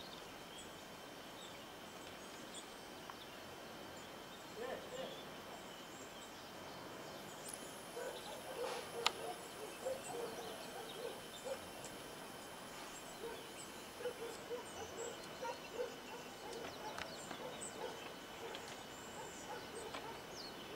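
Faint outdoor ambience: an animal calling in short repeated calls, starting about four seconds in, with small birds chirping and a single sharp click about nine seconds in.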